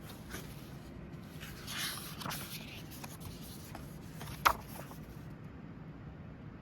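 Pages of a book being turned by hand: soft paper rustling, with one short sharp snap of paper, the loudest sound, about four and a half seconds in.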